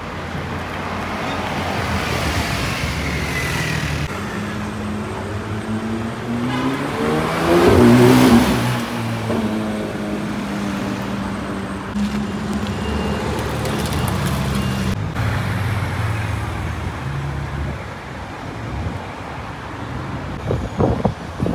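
Car engines in street traffic. About eight seconds in, a car accelerates past with its engine note rising, the loudest moment, and then an engine hums steadily at an even pitch for several seconds.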